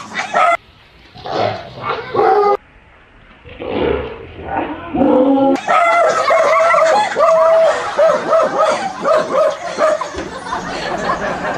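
A dog barking and yipping: a few short bursts at first, then rapid, almost unbroken barking from about halfway, as it confronts a fake tiger and lion.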